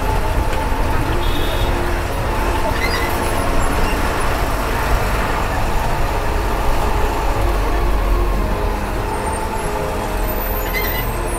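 Steady running of a bus engine with road noise, heard from inside the moving bus.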